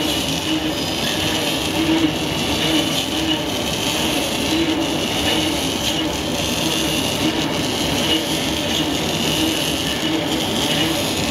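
Rotary ring stretch-wrapping machine running, its film carriage circling a big bale of peat substrate and winding stretch film around it: a steady mechanical noise.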